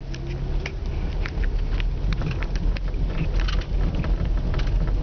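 Car driving on an icy, snow-covered road, heard from inside the cabin: a steady low rumble of engine and road noise, with scattered small clicks and crackles a few times a second.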